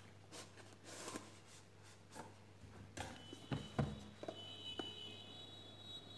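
Cardboard phone box being handled: the printed outer sleeve slid off and the white inner box moved and set down, with soft scraping and a scatter of light taps and knocks, the firmest a little past the middle.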